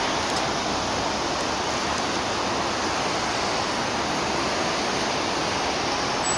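Steady city traffic noise: an even, unbroken hiss from a busy street, with no distinct vehicle passing out of it.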